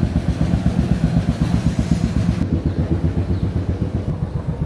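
A small engine idling steadily with an even, low, rapid chugging.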